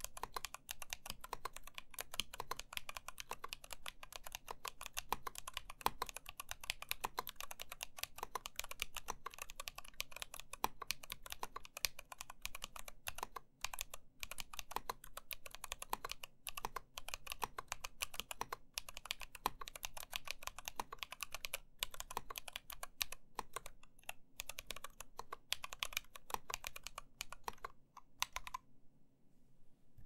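Steady, fast typing on an NK65 mechanical keyboard fitted with 67g Zealios tactile switches, lubed and filmed, and INF Katakana keycaps: a dense run of key clacks. The typing stops shortly before the end.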